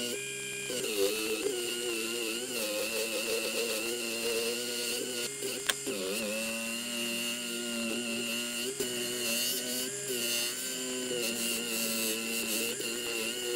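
Small electric bench motor spinning a felt polishing wheel with a steel knife blade held against it. It makes a steady whirring hum that shifts in pitch several times. The pitch dips about six seconds in, just after a sharp click.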